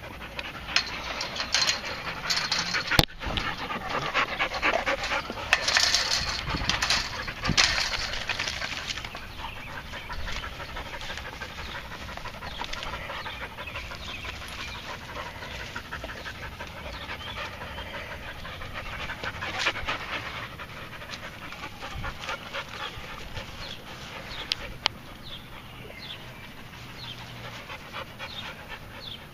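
A dog panting hard and fast to cool down after a walk, heaviest in the first several seconds and then easing. There is one sharp click about three seconds in.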